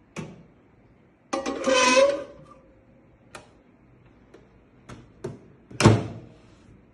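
A plate scraping as it is pushed onto a microwave oven's turntable, a few light clicks, then the microwave door shutting with a thump near the end.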